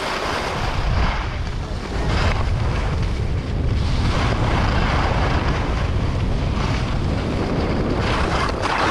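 Wind buffeting the microphone during a ski run, with skis hissing over the snow, the hiss swelling and fading several times.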